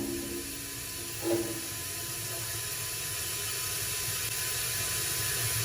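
Plasma cutter running on steel: a steady hiss of cutting air and arc that slowly grows louder, with a brief knock about a second in.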